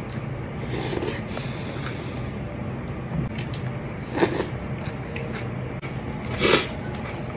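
A person eating from a takeout box with chopsticks: soft mouth sounds of biting and chewing, with short louder noises about four seconds in and again, loudest, at about six and a half seconds. A steady low hum runs underneath.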